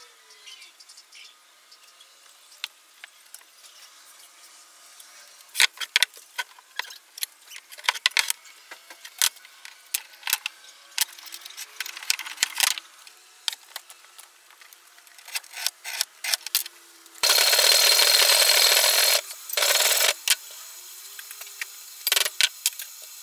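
Hand tools at a workbench: scattered sharp taps and clicks, then two loud stretches of scraping noise, one about two seconds long and a shorter one soon after. More taps follow near the end.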